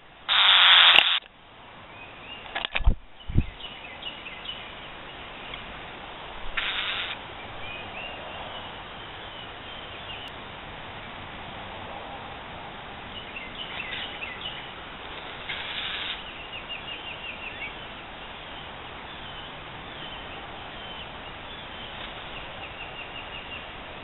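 Northern mockingbird calling in alarm: several harsh, hissing squawks, the loudest about half a second in and others near 7 and 16 seconds, over faint thin chirps and runs of quick repeated notes. A few sharp knocks sound around 3 seconds.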